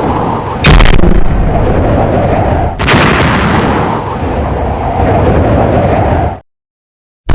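Explosion sound effects: a loud, continuous blast rumble with two sharp new blasts, one under a second in and one about three seconds in, cutting off suddenly near the end.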